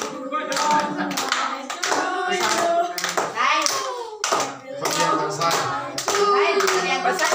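A group of children singing together while clapping in time, about two claps a second, with a short break in the clapping about four seconds in.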